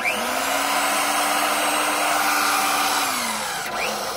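Corded drill motor driving a Power Krawl stair climber's chain-driven gearbox and rubber treads. It spins up at the start, runs steadily for about three seconds, then winds down near the end.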